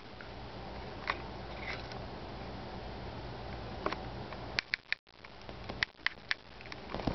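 A kitten playing on a leather armchair: scattered light taps and scuffs, with a quick cluster of clicks in the second half, over a steady faint low hum.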